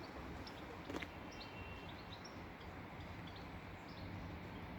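Small birds chirping in short high calls over a faint, steady low hum, with a single sharp click about a second in.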